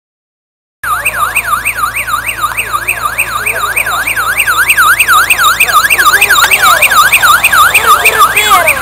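Electronic siren on a rally's '000' course car: a fast yelp sweeping up and down about three times a second. It starts abruptly about a second in and grows louder as the car approaches.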